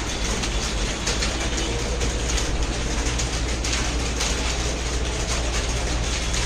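Computer keyboard typing: a fast, irregular run of key clicks over a steady low hum.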